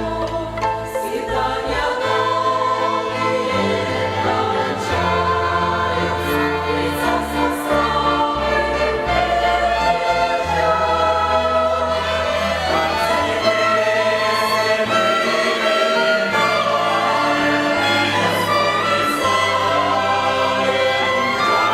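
Church choir singing a slow hymn in several parts, accompanied by a violin ensemble, with a steady low bass line under sustained notes.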